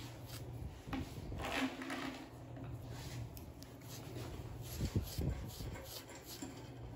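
Faint, scratchy short strokes of a carding knife being drawn flat through a puppy's thick back coat, pulling out loose undercoat fluff, with a brief louder rustle about a second and a half in.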